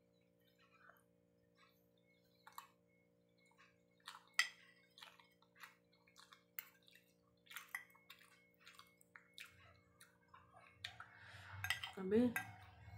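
Eating sounds: a spoon and fork clicking and scraping against a plate, mixed with chewing. The clicks are scattered and faint, sharpest about four seconds in and busier near the end, where a short hum of the voice comes in.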